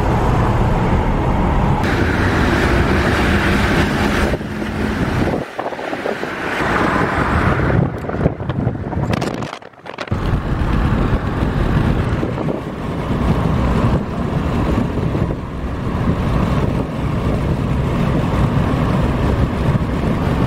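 Road and engine noise heard from inside a moving car, a steady dense rush with wind buffeting the microphone. It dips briefly twice, about five and ten seconds in.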